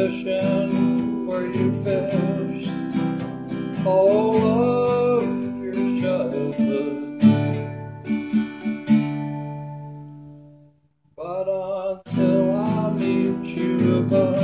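Music led by a strummed acoustic guitar, with a melody line above it. About ten seconds in it fades almost to silence, then starts again a second later.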